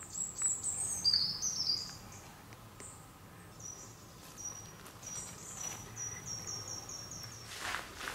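Small songbirds singing in woodland: high chirping phrases in the first two seconds, then a quick run of repeated high notes that stops about seven and a half seconds in. A brief rustle comes near the end.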